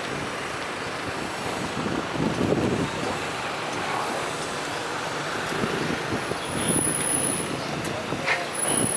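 City street traffic noise: a steady wash of passing vehicles, with a few louder swells as vehicles go by.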